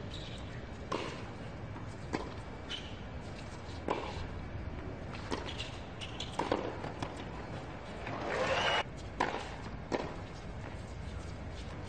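Tennis rally on a hard court: sharp racket strikes and ball bounces about every second, with a louder noisy burst lasting under a second about eight seconds in.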